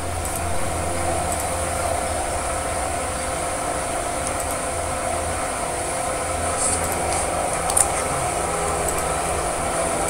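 A steady mechanical hum with several held tones, and a few small clicks about two-thirds of the way in.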